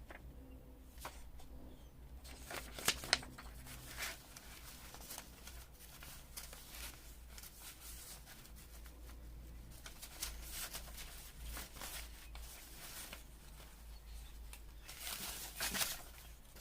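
Paper scraps being handled and sorted by hand: soft rustling with scattered light taps, busier near the end.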